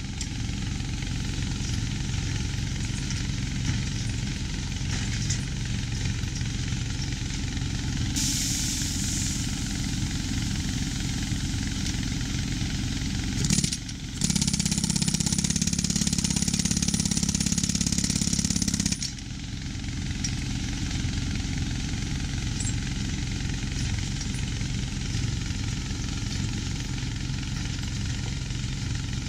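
Vehicle engine running steadily with a fast rattle. From about 8 to 19 seconds in come two stretches of louder hiss and rattle, broken by a short drop near the 14-second mark.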